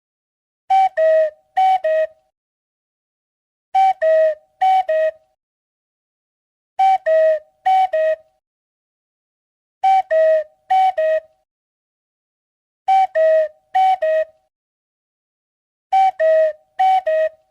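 Cuckoo call, the two-note falling "cuck-oo", given twice in quick succession. Each pair repeats about every three seconds, six times, with total silence between.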